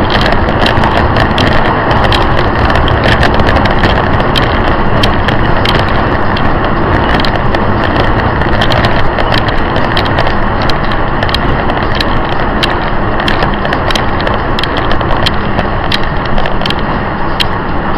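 Steady rushing road noise of a car driving at highway speed, recorded by its dashcam inside the cabin, with many irregular sharp crackling clicks.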